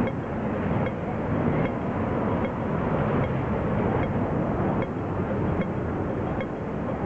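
Audible pedestrian crossing signal ticking at a slow, even rate of a little more than one tick a second, over the louder rumble of passing traffic. The slow ticking is the "wait" signal while vehicles have the green.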